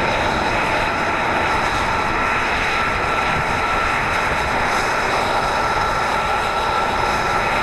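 F-35A Lightning II's single Pratt & Whitney F135 turbofan running at low taxi power: a steady jet roar with a steady high-pitched whine over it.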